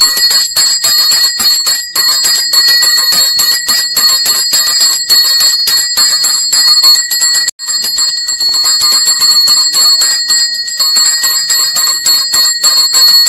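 Temple bell rung rapidly and continuously, a fast, even clanging with a steady metallic ring, during the Bhairava puja.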